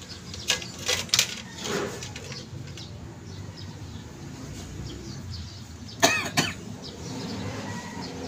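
A few sharp clicks and taps of metal steering box parts being handled, then two loud short bursts about six seconds in, over a low steady rumble.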